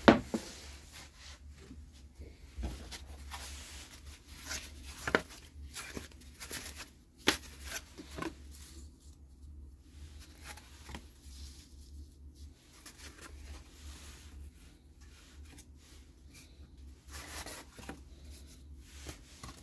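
A board set down with a sharp knock, then cardboard template pieces being slid, shuffled and laid out on it, with a few light taps and rustles over a steady low hum.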